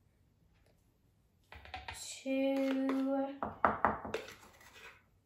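A child's voice holds one hummed note, then a few sharp knocks and a short rattling hiss as a small plastic tub of baking soda is tipped and tapped over a glass to shake out the last of the powder.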